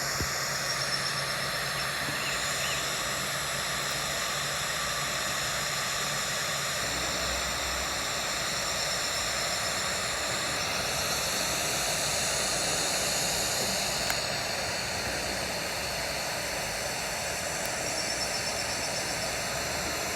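Steady hiss of outdoor background noise, even throughout with no distinct events.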